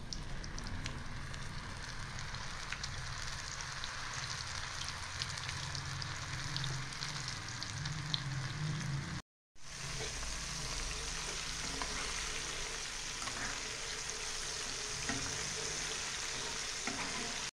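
Flour-coated piau fish fillets deep-frying in hot oil in an enamel pan: a steady sizzle with small crackles. It cuts out briefly a little past halfway.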